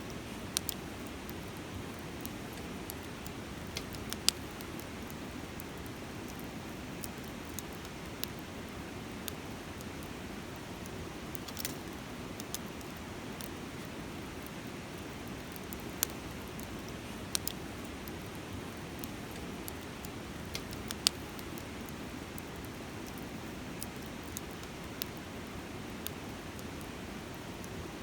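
Wood campfire crackling, with scattered sharp pops, a few much louder than the rest, over the steady murmur of a river.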